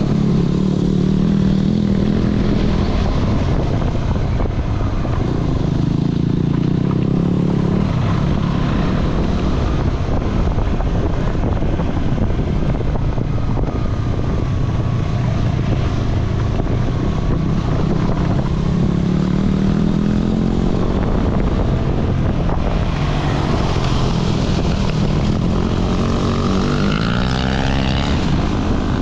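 Adventure motorcycle engine running under load on a rough trail, its pitch rising and falling with the throttle, with a clear rise in revs near the end. Wind rushes over the microphone.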